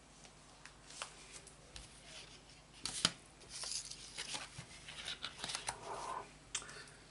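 Hands handling trading-card packets and a card play pitch: rustling and crinkling of card and packet wrappers, with scattered clicks and a sharp tap about three seconds in.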